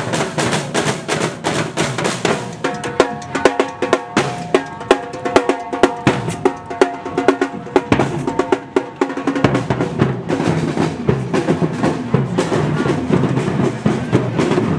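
Street marching drum band of snare and bass drums playing a fast, steady beat, with a short pitched tune over the drums from about three to nine seconds in.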